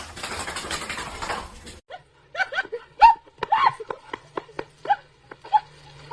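A loud hiss or rustle for the first two seconds, then a pet's short arching calls, about a dozen in quick succession.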